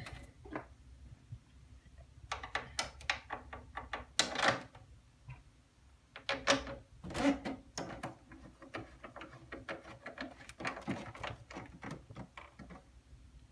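Irregular clicks, knocks and short scrapes of hands fitting an iMac G3's internal parts back together during a hard drive replacement.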